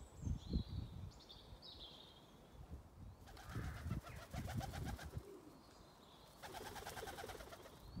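A songbird sings a few short, high, gliding phrases. Then a white dove's wings flap in two rapid flurries, a fast fluttering whirr, as it flies in to land on a wire. A low rumble runs underneath.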